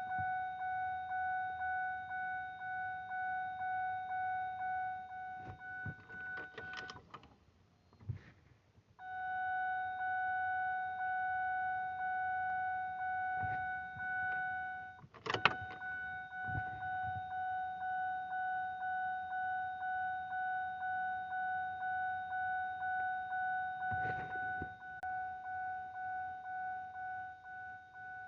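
2006 Ford Fusion SEL V6's warning chime ringing as a single-pitched electronic tone, repeating about three times every two seconds. About seven seconds in it stops after a couple of clicks, then sounds as one held tone for several seconds. After a loud click it pulses again, with another click a few seconds before the end.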